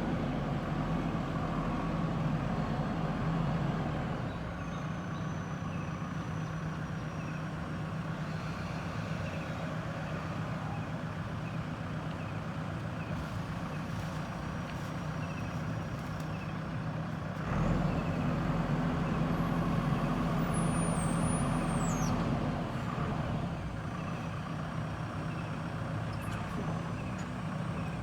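JCB 3DX backhoe loader's diesel engine running steadily under work, louder and harder-pulling for the first few seconds and again for about five seconds starting just past the middle.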